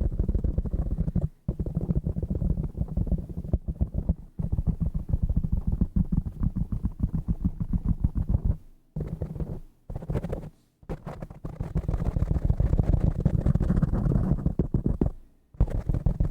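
Fingers tapping fast on assorted desk objects, a dense run of dull, low taps. It breaks off briefly a few times: about a second in, around four seconds, twice in the middle and shortly before the end.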